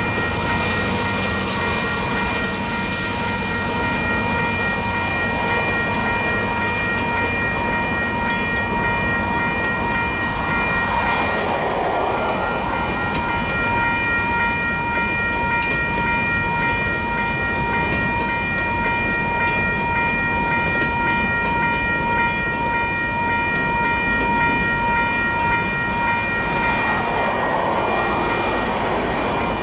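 Freight cars rolling through a level crossing, steel wheels clattering over the rails, louder twice, once about a third of the way in and again near the end. A crossing bell rings steadily over the wheel noise.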